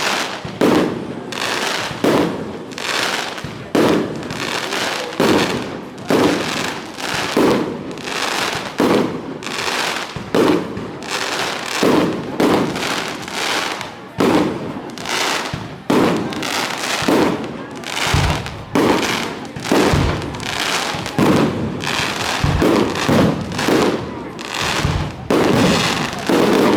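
Fireworks display: aerial shells bursting in quick succession, roughly one bang every second or less, with crackling between the bursts. Some deeper booms join in during the last third.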